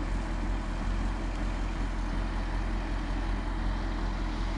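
Heavy truck diesel engine running steadily at low revs, a constant low rumble.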